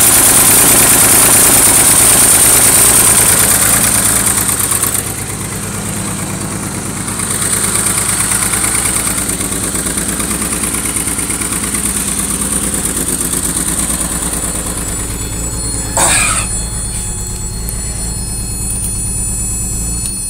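BMW E23's M30 straight-six idling rough with a misfire, which the owner traces to a faulty spark plug wire, he believes on cylinder 5. It gets quieter about five seconds in, and there is a brief sharp sound about sixteen seconds in.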